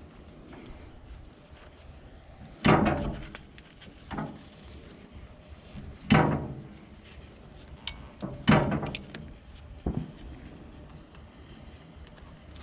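Tools and fittings knocking while the hydraulic hose connections on a backhoe cylinder are worked tight: five sharp clanks, a second or two apart, each with a short ring.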